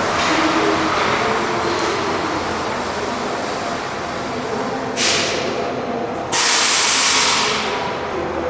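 Tateyama Tunnel trolleybus in the station, its running sound steady with a faint hum, then two sudden bursts of compressed-air hiss, a short one about five seconds in and a longer one about a second later, each fading away.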